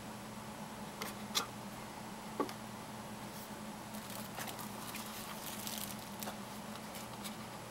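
Hands handling a plastic LED camping lantern: three light clicks in the first few seconds, then faint scratchy rustling, over a steady low hum.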